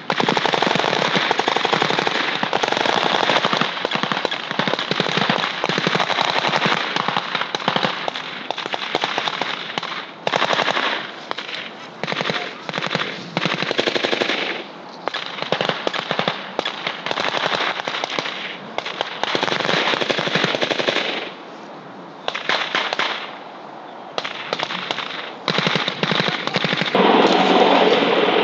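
Rapid automatic gunfire from soldiers' rifles, many shots in long bursts with short pauses between them. Near the end a steadier, denser noise takes over from the shots.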